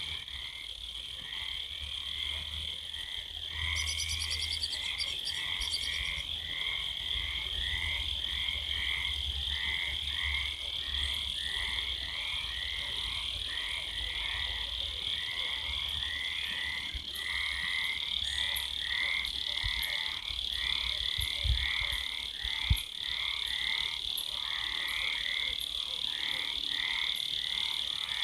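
Frogs croaking in a steady, regular rhythm of about two calls a second, over a continuous high-pitched cricket chorus. Two short low thumps come about three-quarters of the way through.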